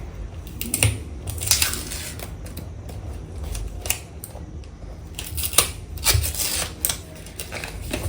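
Cardboard and paper packaging of an Apple Watch box being handled and pulled open: scattered rustles, scrapes and light clicks.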